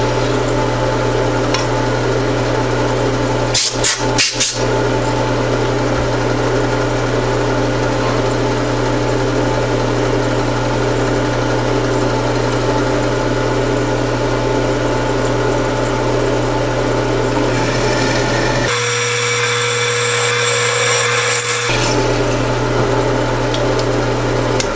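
Drill press running with its twist drill cutting a clearance hole through a metal bar held in a drill-press vise: a steady motor hum under the scraping noise of the cut. A few sharp knocks come about four seconds in, and the cutting noise changes for a few seconds near the end.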